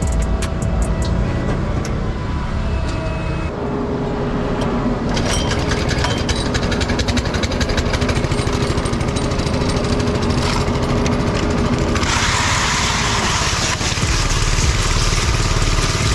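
Power trowel's small petrol engine running steadily, with a change in its sound a few seconds in and again near the end.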